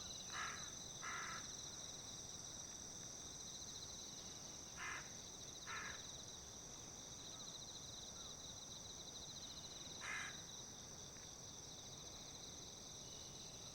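Insects trilling steadily, one with a fast pulsing trill. A bird gives short harsh calls: two near the start, two about five seconds in, and one about ten seconds in.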